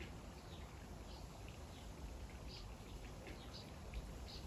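Quiet background with a faint steady hum and a few short, high bird chirps scattered through it.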